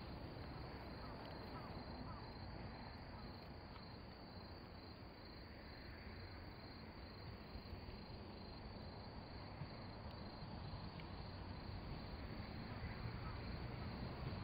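Faint rural ambience: insects chirping in a steady rapid rhythm over a low rumble. The rumble grows slowly louder through the second half as a steam train approaches in the distance.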